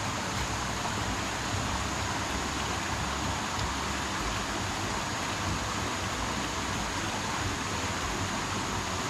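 Mountain stream rushing steadily over boulders.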